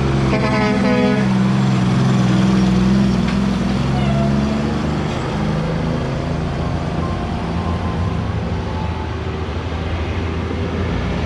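Diesel engine of a loaded Kenworth tractor-trailer coming down a mountain grade. It passes close, is loudest a couple of seconds in, then fades as it goes away downhill, with a car going by afterwards.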